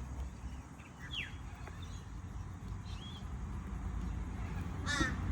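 Outdoor bird calls: a thin falling whistle about a second in and a short note a couple of seconds later. Near the end a harsh, repeated caw-like call starts. A low steady rumble runs underneath.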